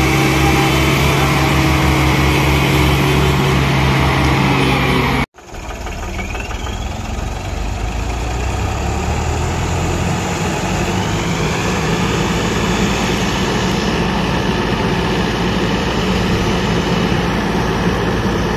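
Heavy farm-machine engines of tractors and a sugarcane harvester running steadily. About five seconds in, the sound cuts out for an instant and comes back with a different engine note, quieter at first and growing louder over a few seconds.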